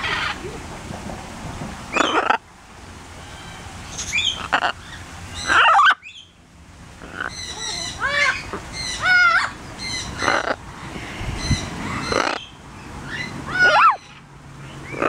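Blue-and-gold macaw making a string of short squawks and chattering calls during play, some calls bending up and down in pitch.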